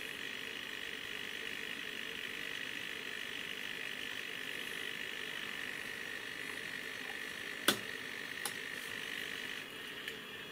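Steady electronic whine and hum from the instrument test bench, broken by a sharp button click about three quarters of the way through and a softer click just after, as the thermocouple simulator's setting is stepped down from 1000 to 990. The whine changes pitch shortly before the end.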